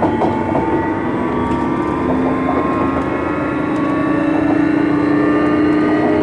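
Hitachi GTO-thyristor VVVF inverter and traction motors of a Sotetsu New 7000 series electric train car, whining with several tones that rise steadily in pitch as the train accelerates, over wheel and rail rumble.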